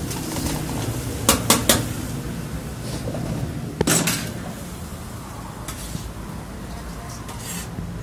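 Flat metal spatula clinking and scraping against a steel karahi (wok) while chicken karahi is stirred and scooped out, with three quick clinks about a second and a half in and a louder one about four seconds in, over a steady low background noise.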